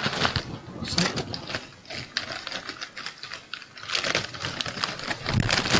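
White kraft-paper bouquet holder rustling and crinkling in the hands as a bunch of flowers is pushed into it, with quick irregular crackles.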